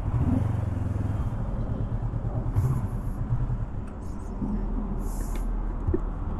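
Honda NX500's parallel-twin engine running as the motorcycle is ridden: a steady, low engine drone with road noise.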